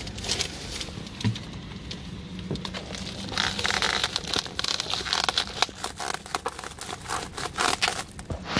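Plastic cling wrap crinkling and crackling as it is pulled and peeled off a foam takeout container by hand, in irregular crackles that thicken into denser crinkling from about three and a half seconds in.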